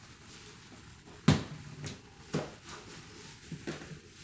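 Spice bottles being handled and set down on a countertop, giving about five sharp knocks: the loudest about a second in, then lighter ones.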